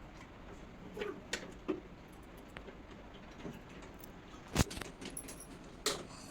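Scattered light clicks and knocks from handling tools and parts while an air conditioner is serviced, the loudest a sharp knock about four and a half seconds in and another just before the end.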